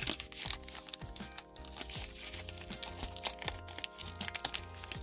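Foil trading-card booster pack crinkling and tearing as it is pulled open by hand: a dense run of irregular crackles. Background music with a steady bass beat plays under it.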